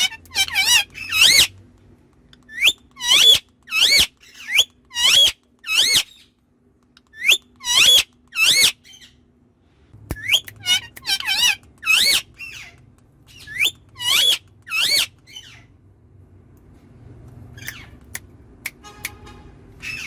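Talking parrot calling and chattering in short squeaky, warbling notes and mimicked speech, in bursts of several quick calls with short pauses between them.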